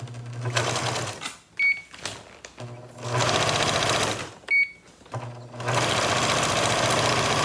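Electronic sewing machine stitching through a woven plastic feed sack in three runs, stopping briefly twice. A short high beep sounds in each stop. The third run starts about five seconds in and keeps going steadily.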